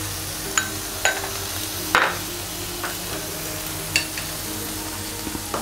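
Hot moong dal filling sizzling faintly in a nonstick pan just taken off the flame, a steady hiss broken by a handful of sharp pops and ticks, the loudest about two seconds in.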